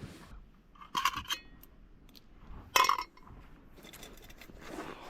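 Cooking gear clinking: two sharp metallic knocks, the first leaving a brief ring, the second louder about three seconds in, over light scraping.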